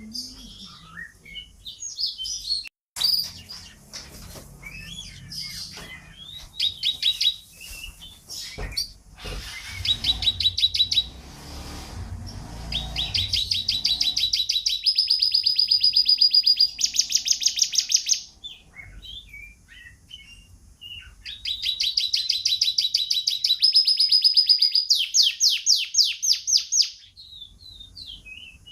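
Domestic canary singing: long, rapid trills of quickly repeated notes that switch to a new note every second or two, loudest in two long runs in the middle and later part, with scattered short chirps between.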